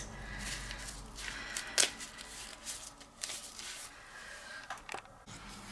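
Faint handling noise: a few light clicks and rustles over a low hiss.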